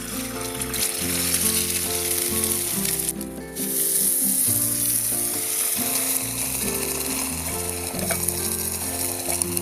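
Food sizzling as it fries in a hot pan, a dense steady crackle that drops out for a moment about three seconds in and then comes back louder.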